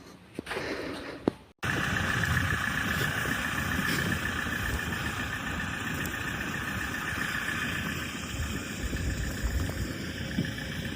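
Steady engine noise with a constant whine and low rumble, starting abruptly after a cut about a second and a half in; before the cut, a few faint clicks.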